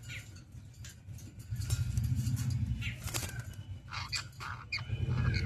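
A pet parrot flapping its wings in bursts, with a few short high chirps and squawks, mostly near the end.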